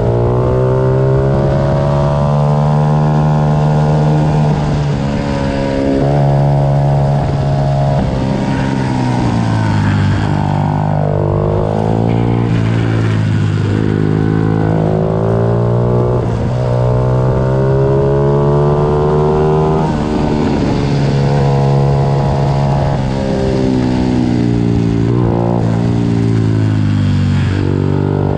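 Several 90 cc pitbike engines running together at race pace, their pitches overlapping and rising and falling over and over as the bikes accelerate and back off.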